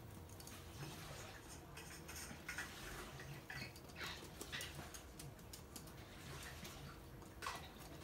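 Toy poodles' claws clicking on a hard wooden floor as they walk and trot: light, irregular ticks.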